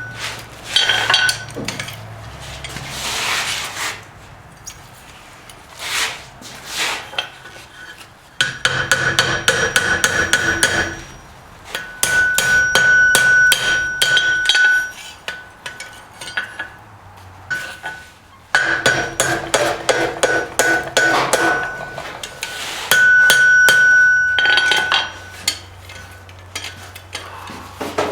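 Hammer blows on hot iron over an anvil while forging barbed wire into a horseshoe. The blows come in fast runs of a second to three seconds, with pauses between, and the anvil rings with a steady high note during each run.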